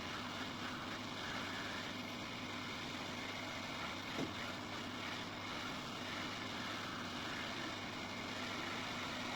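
Steady hiss of a hot-air rework station blowing, with a faint hum under it and one light click about four seconds in.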